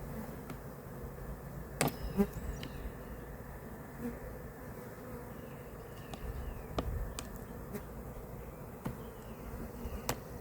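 A mass of Carniolan honey bees buzzing steadily from an opened bee package, with several sharp knocks and clicks as the package is worked open, the loudest about two seconds in.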